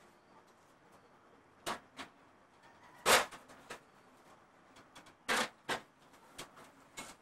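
A few brief scuffing noises over a faint steady hiss. The loudest comes about three seconds in, and two more come close together a little after five seconds.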